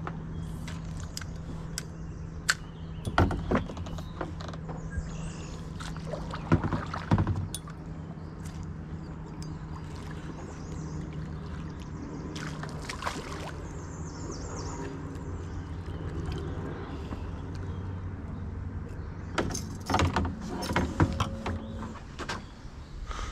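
Knocks and clatter of paddle and gear against a plastic kayak hull, in a few short clusters, over a steady low hum.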